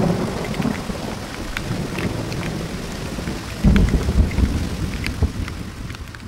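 Thunderstorm: steady heavy rain with thunder rumbling, one roll at the start and a louder one breaking suddenly about three and a half seconds in.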